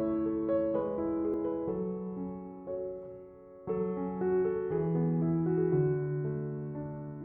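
Background piano music: gentle chords and melody notes, each struck and left to ring, with a fresh chord about four seconds in.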